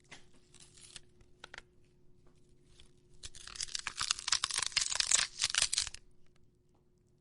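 Foley performer breaking and tearing apart a crisp object close to the mic. A few faint crackles come first, then about three seconds of dense crackling and tearing starting a little after three seconds in, which stops well before the end.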